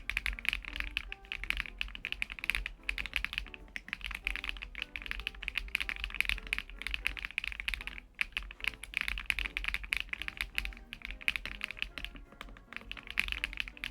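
Fast typing on a LUMINKEY LUMINO75, a gasket-mounted aluminium-case mechanical keyboard with PBT keycaps: a dense run of keystroke clacks with a few short pauses, over background music.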